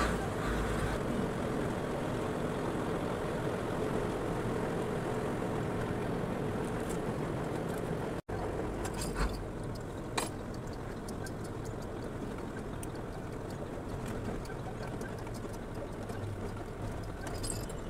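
Truck engine and road noise heard from inside the cab while driving, a steady drone. It breaks off for an instant about eight seconds in, and two brief clicks follow about a second apart.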